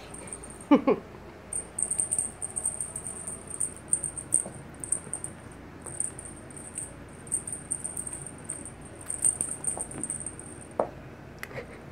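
A kitten tussling with a feather wand toy makes a high, fast rattling that comes and goes in bursts, with a few light knocks and scuffs.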